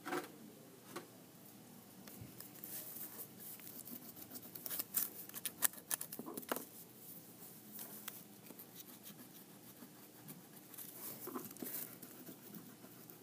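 Wax crayons scratching and tapping on construction paper while flowers are drawn: faint, irregular scribbling with small clicks, busiest in the middle and again near the end.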